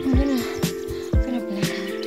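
Background music with a steady beat: a kick drum about twice a second under held synth chords.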